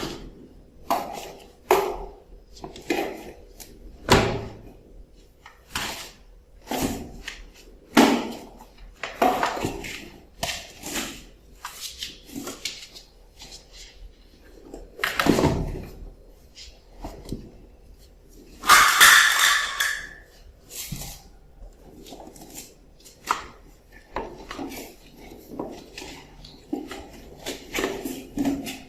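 Kittens meowing over and over in short calls, mixed with knocks and clatter, with one longer, louder, higher-pitched cry about two-thirds of the way through.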